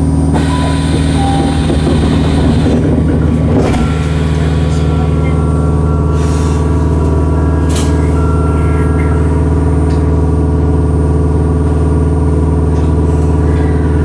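Tokyu 3000 series electric train running, heard from on board: a steady hum of motors and running gear with several level whining tones, broken by a few short hisses.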